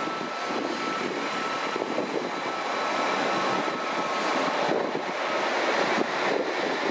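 Transport for Wales passenger train passing close alongside a station platform: a steady rush and rumble of the carriages and wheels on the rails, with a thin steady whine above it. The noise swells a little about halfway through.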